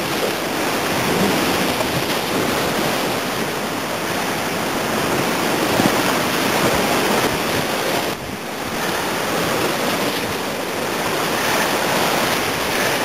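Rushing whitewater of a river rapid, an even steady noise with a short dip about eight seconds in.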